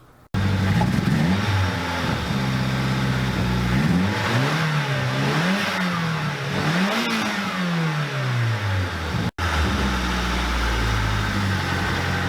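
Car engine being revved, its pitch climbing and falling several times, then running at a steadier, lower speed after a short break near the end. The owner suspects a boost leak in its turbo system.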